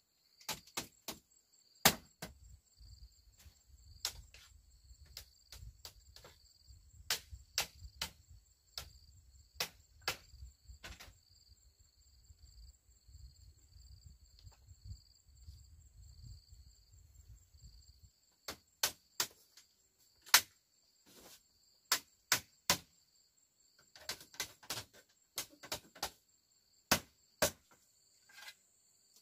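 Sharp, irregular knocks of tools striking bamboo, sometimes several close together and sometimes a second or two apart, over steady high-pitched insect trilling. A low rumble sits underneath through the first half.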